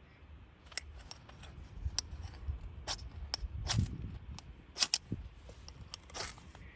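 Irregular sharp clicks and clinks of small hard objects being handled, a dozen or so, with the loudest few coming in the second half.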